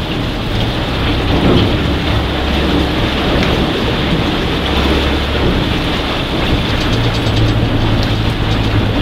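Raft's boat motor running steadily with a low hum, under a steady rushing noise.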